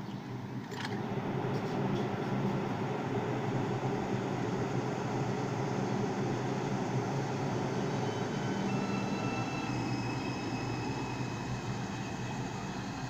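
R142 subway train pulling out of the station, its motors and wheels running louder over the first couple of seconds after a sharp click. Thin high whine tones from the propulsion join about two-thirds of the way through as it gets under way.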